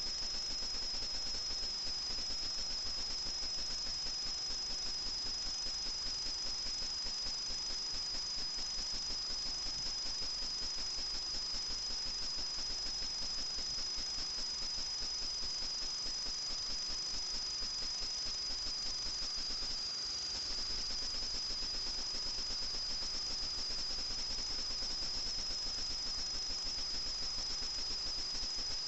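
Steady high-pitched whine over a hiss, typical of an FPV quadcopter's onboard camera audio in flight. The pitch sags slightly about two-thirds of the way through.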